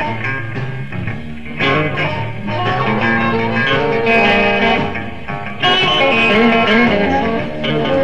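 Electric blues band playing live, with electric guitar to the fore over bass and drums.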